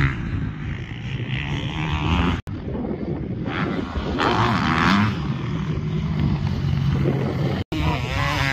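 Motocross bike engine revving up and easing off as the bike rides the dirt track. The sound cuts out for an instant twice.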